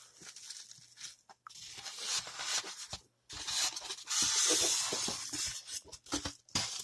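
Cardboard and plastic packaging rustling and scraping as an air fryer is unpacked from its box, with a few sharp clicks; the loudest rustling comes about four to five and a half seconds in.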